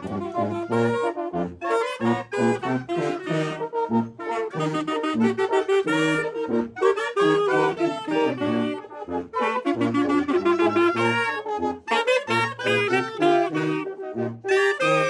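Mexican wind band (banda de viento) playing, brass and saxophones over a bass line of short, rhythmic low notes. The band's trombone is damaged.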